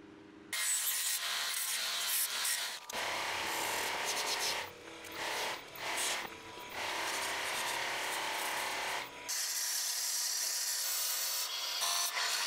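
Turning gouge cutting into a spinning wooden blank on a lathe: a steady scraping hiss of shavings coming off, in several stretches with short breaks between them. Late on the cut gets thinner and higher.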